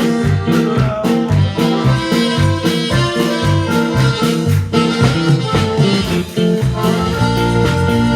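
Instrumental music from a church worship band, with a steady beat and a stepping bass line and no singing.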